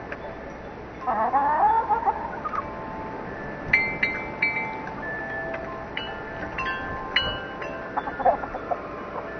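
Wind chimes ringing, struck several times in the middle with clear lingering tones, while hens call: one drawn-out wavering call about a second in and a shorter one near the end.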